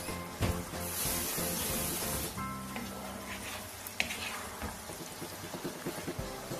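Background music over stir-fried noodles sizzling in a wok, with a burst of high sizzle about a second in. A wooden spatula stirs and knocks a couple of times against the pan.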